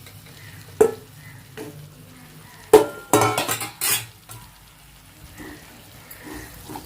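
Fried chicken pieces being tipped into a pan of simmering manchurian sauce and stirred, with a spoon knocking and scraping against the pan. A sharp clank comes a little before three seconds in, followed by about a second of clattering.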